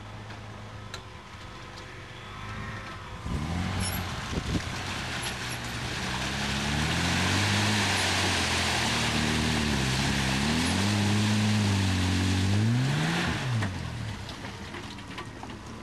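Off-road 4x4 van's engine labouring through deep mud and water, revs rising and falling under load, with a loud rushing hiss of churned water and mud through most of it. Near the end the revs climb sharply, then drop away.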